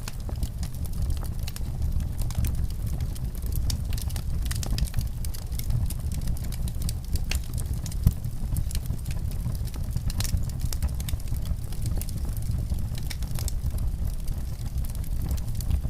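Wood fire in a fireplace crackling: irregular sharp pops and snaps over a steady low rumble, with one louder pop about eight seconds in.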